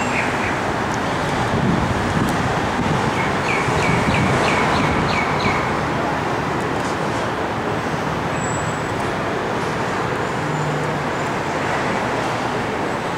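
Steady roar of street traffic, with a run of about seven short high chirps about three to five seconds in.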